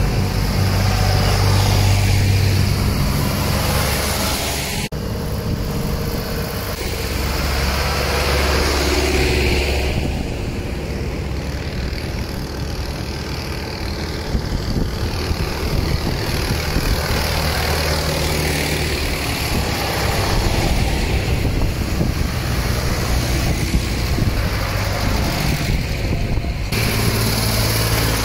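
A procession of diesel tractors driving past close by on a country road, one after another: a John Deere 6200 goes by at the start and a red Massey Ferguson draws near at the end. Steady engine drone with tyre noise, swelling and fading as each tractor passes. It breaks off abruptly twice, about five seconds in and near the end, and the whole sound is sped up to double speed.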